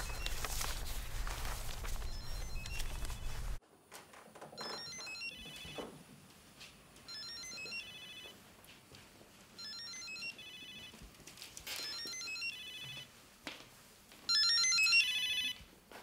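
A steady hiss and hum cuts off abruptly about three and a half seconds in. Then a phone ringtone plays a short melodic phrase of stepped electronic tones, repeating about every two and a half seconds and much louder over the last two rings: an incoming call that is then answered.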